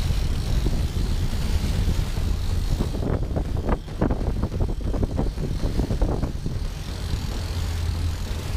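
Center-console boat's engine running steadily in gear, with wind on the microphone and water rushing past the hull; from about three to six seconds in, the wind and water noise turns rough and choppy.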